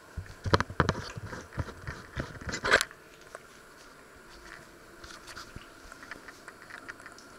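Handling noise from the camera being picked up and moved: a quick cluster of knocks, clicks and rubbing on the microphone for about the first three seconds, the loudest near three seconds in, then only faint scattered ticks.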